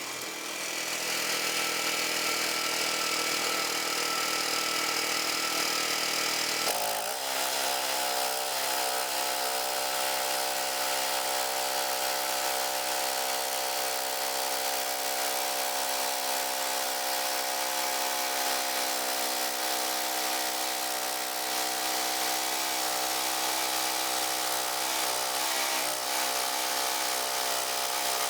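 Frontier OS31 portable bandsaw sawmill running steadily, its blade cutting lengthwise through an ash log; the tone of the machine shifts about seven seconds in and then holds steady.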